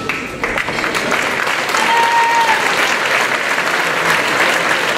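Arena crowd applauding and cheering at the end of a kickboxing round, swelling about half a second in, with a brief high note around two seconds.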